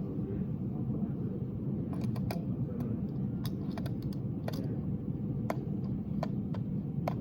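Scattered sharp clicks and taps, about nine at irregular intervals, over a steady low background hum.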